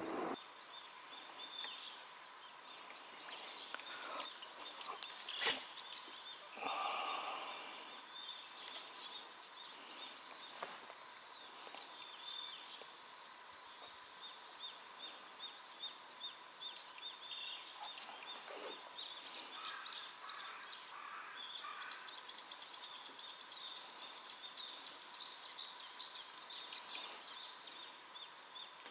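Wild birds calling: scattered calls at first, then from about halfway a long fast run of high, evenly repeated notes, over a faint steady tone.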